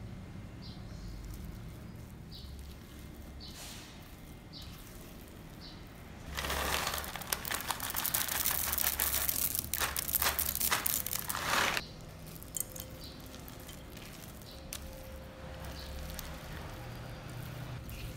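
Soft scraping of a silicone whisk through thick cookie dough in a glass bowl. About six seconds in, a loud rattling, rustling clatter lasts about five seconds as chocolate chips are poured into the bowl. After that comes quieter scraping as a spatula folds the chips in.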